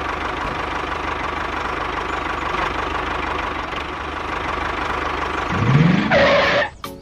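A small motor or engine running steadily with a fine, even pulsing. Near the end a rising sweep leads into a brief loud burst.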